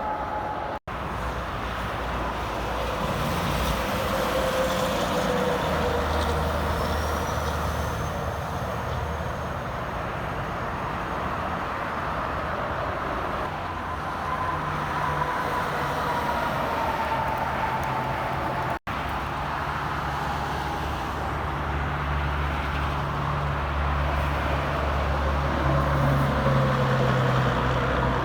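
Steady interstate highway traffic, with big trucks and other vehicles passing: engine drone and tyre noise, and drawn-out whining tones that slide slowly in pitch. The sound cuts out for an instant twice, near the start and about two-thirds of the way through.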